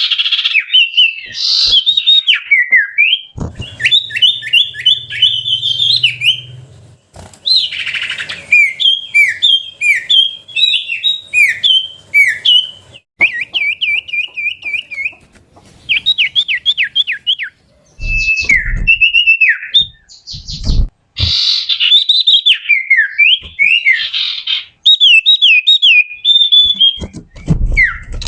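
Common iora (cipoh) singing loudly: fast strings of sharp, down-slurred whistles with a rapid, even trill about halfway through. A few short low thumps break in during the second half.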